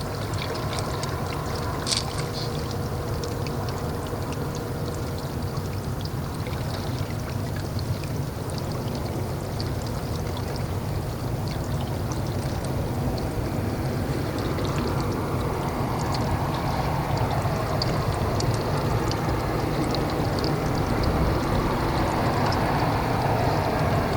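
Steady rush of moving water, growing a little louder in the second half, with scattered small ticks.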